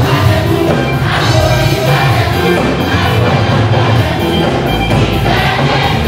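Church congregation and choir singing gospel praise together over loud amplified music with heavy bass and a steady beat.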